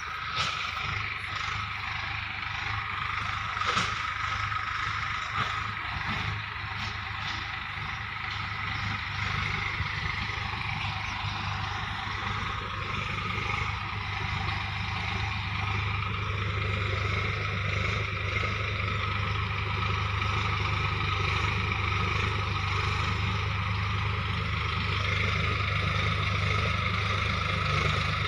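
Farm tractor's diesel engine running steadily under load while plowing, growing slightly louder toward the end.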